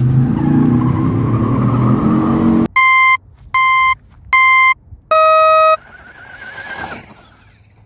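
A rumbling, engine-like sound slowly rising in pitch, then a race-start countdown: three short electronic beeps a little under a second apart and a longer, lower fourth beep. Then the whine of the small electric RC truck motors rises as the trucks launch, fading near the end.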